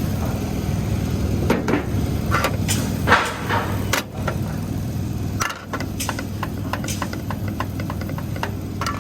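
Steady hum of an engine-driven welder-generator idling, with scattered light clicks and knocks from handling the work.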